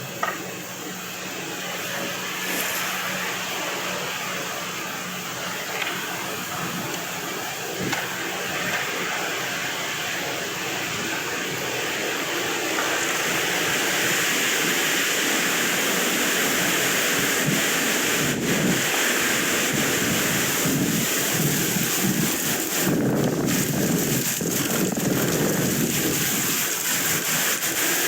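Wind blowing across the microphone, a steady noisy rush that grows louder about halfway through.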